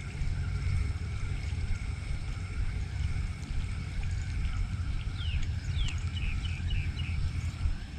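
Outdoor background noise: a steady low rumble, with a short run of falling chirps about five to seven seconds in.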